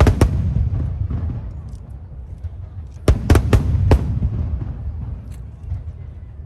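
Aerial fireworks shells bursting high overhead. There are two sharp bangs at the start with a low rumble dying away after them, then a quick run of four or five bangs about three seconds in.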